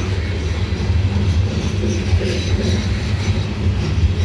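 Loaded coal hopper cars rolling past on steel wheels: a steady, dense rumble of wheels on rail.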